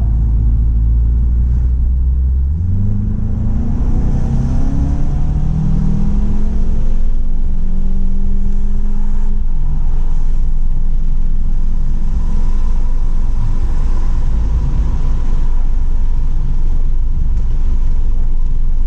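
2017 VW GTI's turbocharged four-cylinder engine under acceleration on track: low at first, it climbs in pitch from about two seconds in, with a few steps in pitch as it shifts gears, then runs fairly steadily at speed.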